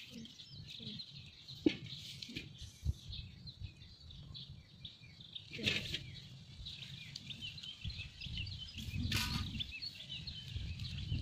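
Small birds chirping over and over in quick, thin notes, with a low wind rumble on the microphone. There are a few sharp snaps and rustles from corn plants being handled as ears are picked.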